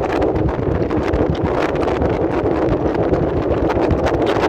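Wind blowing across the microphone: a steady, loud rumbling rush with many short gusty flares.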